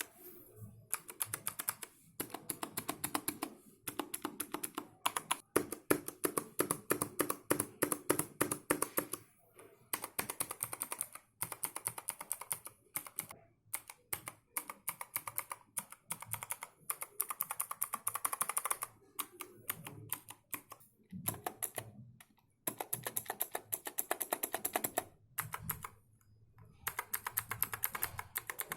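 Cosmic Byte GK-12 Neon mechanical keyboard with blue switches, clicking as keys are pressed one after another. The clicks come several a second in runs, with short pauses between them.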